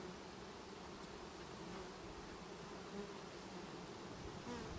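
Many honeybees buzzing around a freshly installed package colony: a steady, low droning hum.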